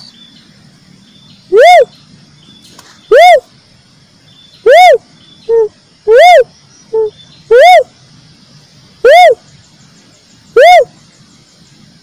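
Cuckoo-dove (uncal) calling: a loud, single rising-and-falling hoot repeated about every second and a half, seven times, sometimes followed by a short, lower note.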